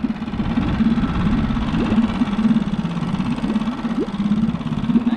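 Boat engine idling steadily, a low even running sound.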